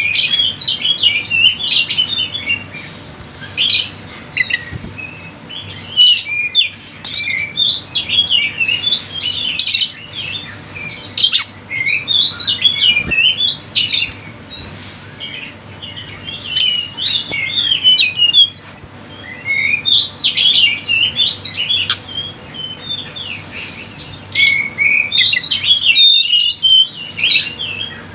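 Tledekan gunung songbirds singing in a loud, busy run of quick chirps and twittering phrases, one following close on another, with a couple of short lulls.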